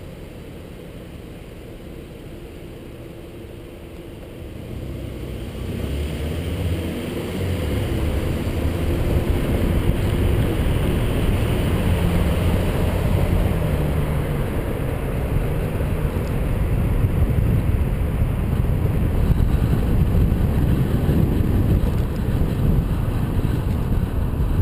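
Wind rushing over the microphone of a bike-mounted camera, mixed with road noise from a bicycle ride in city traffic. It grows much louder about five seconds in, and a passing car engine hums through the middle.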